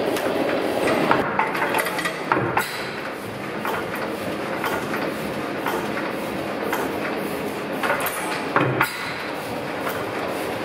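Old Tangye single-cylinder horizontal stationary engine running, with a steady rhythmic mechanical clatter and a few louder knocks about a second in and again near the end.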